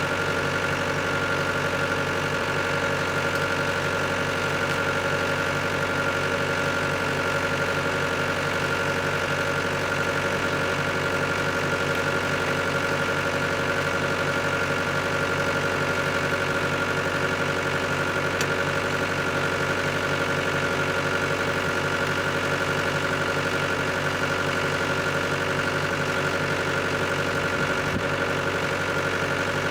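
Engine of a Woodland Mills HM126 bandsaw mill running steadily at an even pitch.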